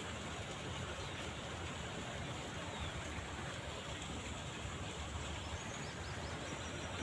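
Steady outdoor background noise: an even hiss over a low, unsteady rumble, with no distinct event.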